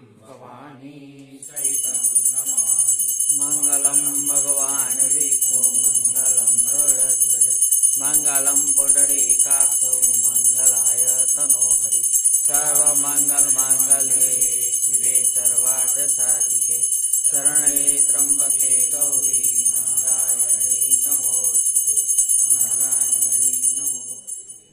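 Puja hand bell rung rapidly and without a break during an aarti, over voices singing the aarti hymn. The bell starts about two seconds in and stops just before the end.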